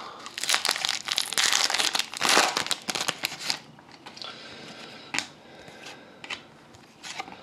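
A foil-wrapped hockey trading-card pack being torn open and its wrapper crinkled, loud for the first three and a half seconds. After that come quieter rustles and a few light clicks as the cards are handled.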